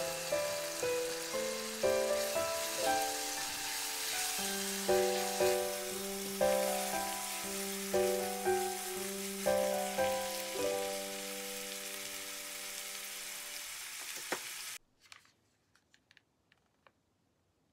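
Diced bacon, garlic and eringi mushroom sizzling in olive oil in a frying pan, under background music with a light melody of single notes. Both stop abruptly about fifteen seconds in, followed by a few faint clicks.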